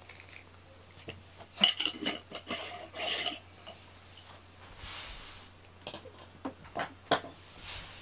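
Cat grooming itself close up: wet tongue clicks and rasping licks as it licks a front paw and washes its face. They come in two spells, the loudest just under two seconds in and again around seven seconds.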